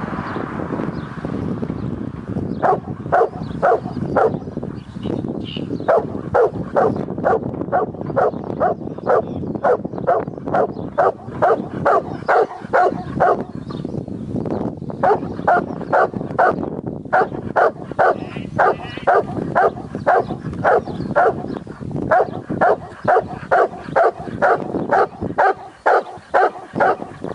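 A working farm dog barking over and over during a sheep round-up, at about three barks a second in long runs with a few short breaks.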